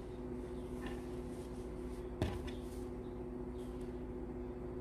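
Quiet room tone with a steady low hum, faint handling noise and one short soft knock a little over two seconds in.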